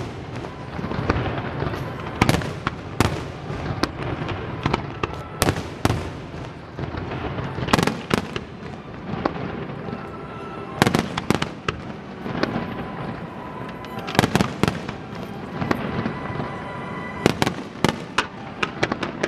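Fireworks display: a steady crackle of shell bursts and sharp reports, with louder volleys of bangs every few seconds.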